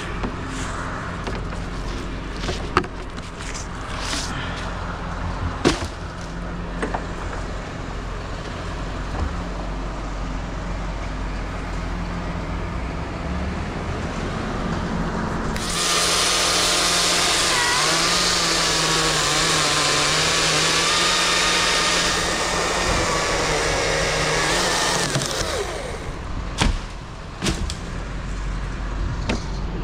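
A truck engine runs steadily underneath, with a few scattered knocks. About halfway through, a chainsaw runs hard for roughly nine seconds, its pitch wavering as it cuts, then drops away.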